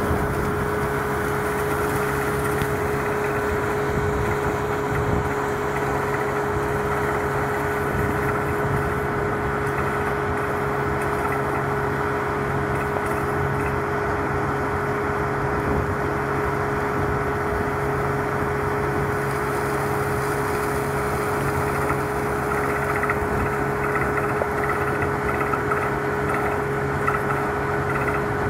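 Water bore drilling rig running steadily: its engine and air compressor make an even drone with a constant whine, while compressed air blows water and rock dust out of the discharge pipe.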